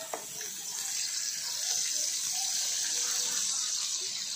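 Pork belly cubes frying in a steel wok, a steady high sizzle that grows louder in the first second or two as a little cooking oil is poured in, to draw out the pork's own fat. A brief click right at the start.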